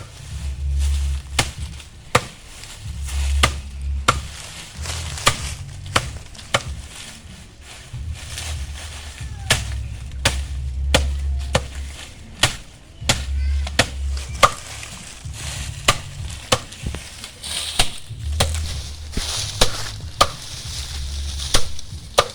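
A panga (machete) chopping dry maize stalks into feed for goats, hand-cutting instead of a chaff cutter: a long run of sharp chopping strikes at an irregular pace, roughly one every half second to a second.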